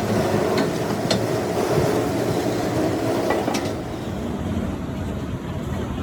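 Machinery running steadily, with a few sharp metallic clicks; about four seconds in the high hiss drops away and a lower running noise carries on.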